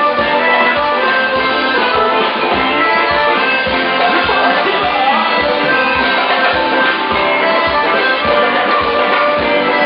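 A band playing music, with a steady, fast drum beat under sustained melodic instruments.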